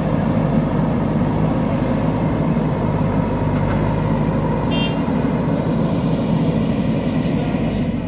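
Diesel engine of a JCB 3DX backhoe loader running steadily at working speed while it loads soil. A short high tone sounds about five seconds in.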